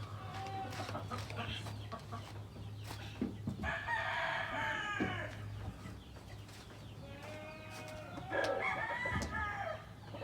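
Rooster crowing twice, each crow a long call of about a second and a half, with chickens clucking between. A steady low hum runs underneath and stops near the end.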